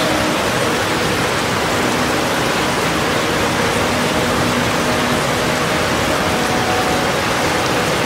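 Waterfall rushing steadily, a constant even noise of water falling over rock into a pool.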